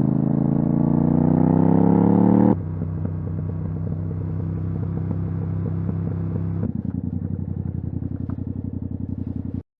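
Yamaha MT-07's parallel-twin engine through a titanium Akrapovic exhaust with no dB killer, revving up with a rising note for about two and a half seconds, then dropping abruptly to a steady lower note. About seven seconds in it steps down again to a lower, pulsing note, and it cuts off suddenly near the end.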